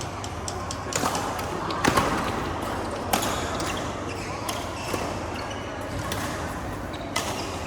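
Badminton racket strings striking the shuttlecock in a rally: several sharp hits spaced one to two seconds apart, over a low murmur of people.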